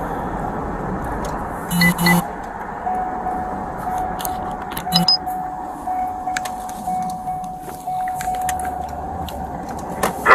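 A motor vehicle running, with two short beeps about two seconds in, a faint steady tone from about three seconds until near the end, and scattered clicks and rattles.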